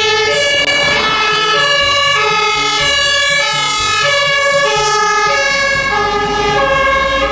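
German fire engine's two-tone siren (Martinshorn) sounding on an emergency run, alternating between a lower and a higher pitch about every half second.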